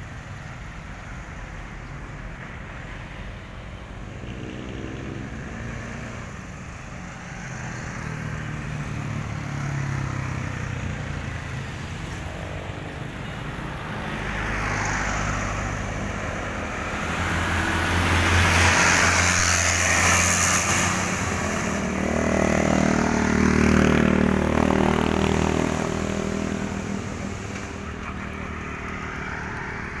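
Road traffic: small trucks and motorcycles driving past one after another, each engine and its tyre noise swelling and fading. The loudest passes come a little past the middle.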